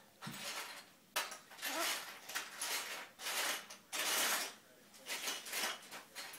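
A banana being peeled by hand: a series of short rustling tears as strips of the skin are pulled down.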